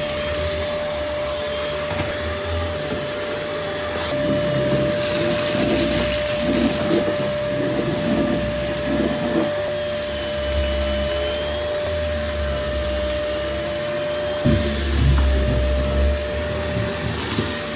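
Dyson DC08 Animal cylinder vacuum cleaner running with a steady motor whine as its turbine brush head is worked over the floor. Irregular rattling and knocks come and go, from about five to nine seconds in and again near the end, as scattered crunchy debris is picked up.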